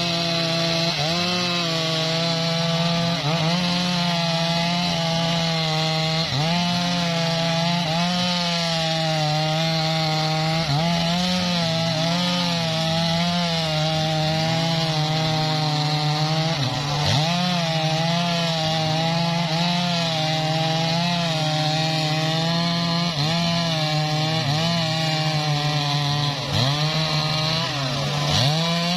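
Two-stroke Stihl chainsaw at full throttle, cutting through a felled mahogany log. The engine pitch keeps wavering and dipping as the chain loads up in the wood.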